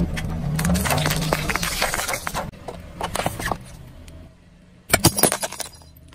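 Car tyre rolling over a row of paint tubes and crushing them, crackling as the tubes split, over the low hum of the car. The crackling thins out after about two and a half seconds, and a short burst of sharp cracks comes about five seconds in.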